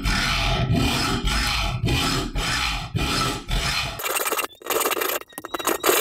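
Hand hacksaw sawing through an old pocket knife clamped in a vise, rasping back-and-forth strokes about two a second. About four seconds in the strokes turn thinner and choppier, with a faint squeak.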